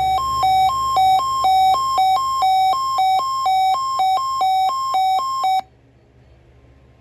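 Weather radio warning alarm during a weekly test: an electronic alert alternating between a low and a high tone, about two cycles a second. It cuts off suddenly about five and a half seconds in.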